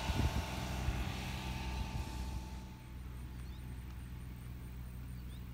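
A steady low engine drone, louder in the first half and dropping to a quieter level about halfway through. A faint, regular high ticking runs through the second half.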